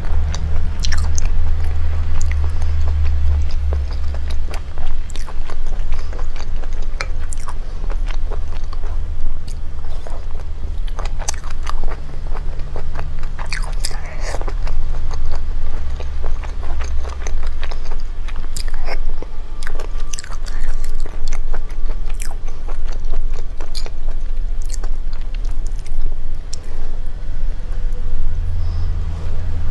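Close-miked eating of sauced seafood: chewing, biting and wet mouth smacks, with many short sharp clicks as pieces are pulled apart, over a steady low hum.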